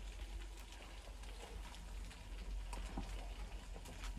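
Food frying in a pan: a faint, steady sizzle with small crackles.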